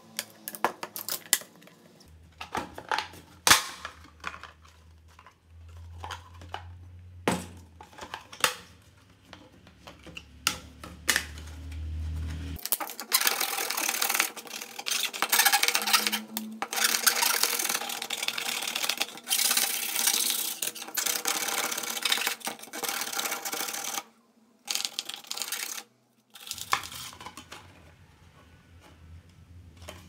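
Hand tools working PVC pipe: a utility knife scoring the plastic, with scattered clicks and taps as the pieces are handled, then about ten seconds of continuous scraping as a hand tool trims the cut edge of the pipe.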